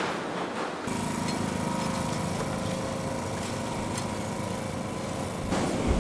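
A small engine running steadily, with a pulsing low rumble and a steady whine. It cuts in suddenly about a second in and gives way about five seconds in to a louder, lower machine noise.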